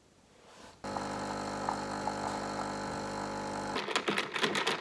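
Coffee machine's pump running with a steady buzzing hum for about three seconds, then a straw stirring an iced coffee in a glass jar, clinking against the glass and ice.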